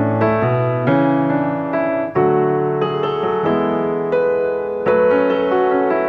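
Background piano music, with struck notes and chords changing about once a second.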